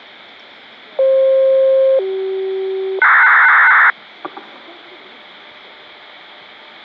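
National WZ-250 disaster-prevention radio receiver hissing with radio static. Over the hiss come three one-second signal tones opening the municipal broadcast: a mid tone, a lower tone, then a louder buzzing higher tone. A couple of clicks follow, then the static alone.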